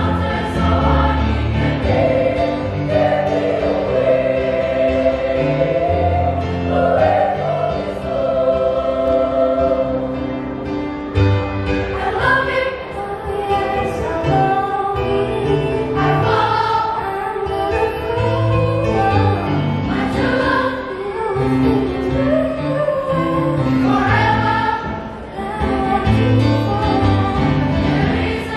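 Children's choir singing a church song, with steady low accompaniment notes underneath.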